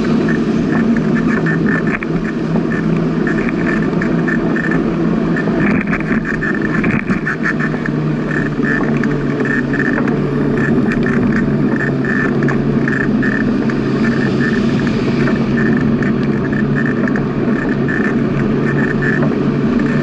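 Steady wind and rolling noise on a bicycle-mounted camera riding along an asphalt path at about 16 km/h, with a fast, uneven rattle throughout.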